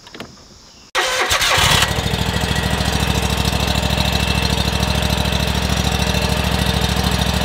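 SCAG zero-turn mower engine being jump-started: about a second in it cranks briefly, catches, and settles into steady running. It needs the jump because its battery is more than likely ruined, melted where it rubbed on a metal plate.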